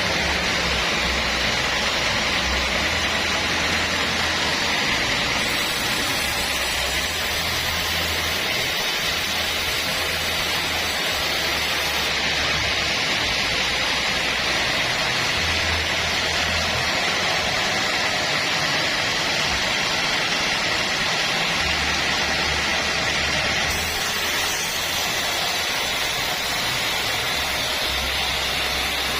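Sawmill band saw running steadily with a continuous loud hiss, over a low hum that comes and goes.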